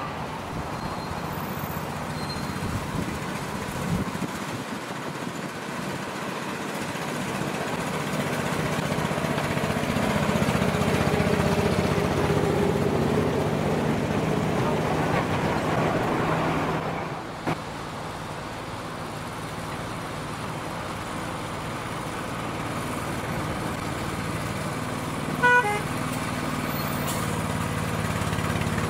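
A miniature railway train running on its track, the rumble of the ride growing louder, then a cut to the small engine of a miniature diesel-outline locomotive running steadily as it approaches. Near the end the locomotive's horn gives one short toot.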